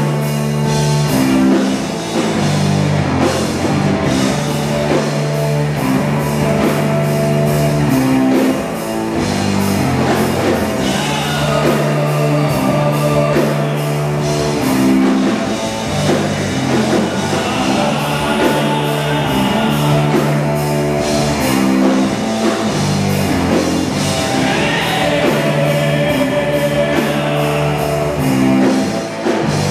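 Live rock band playing loud, heavy rock: electric guitars over a drum kit, with a steady pattern of repeating low bass notes.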